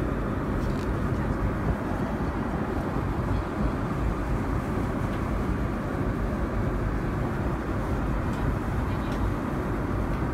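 Steady drone of a Boeing 787-9 airliner cabin, an even low rushing noise from the engines and airflow, with a few faint rustles of paper menu pages being turned.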